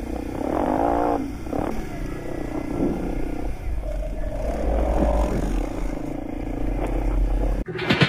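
ATV engine running as the quad rides over loose glacial gravel, with wind buffeting the helmet microphone. Near the end it cuts suddenly to music.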